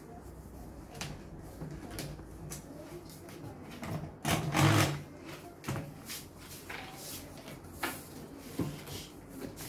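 Handling noise from the jointed arm of an extraoral dental suction unit being swung and adjusted: scattered knocks and clicks at its joints, with a louder rubbing noise about halfway through. The suction motor is not running.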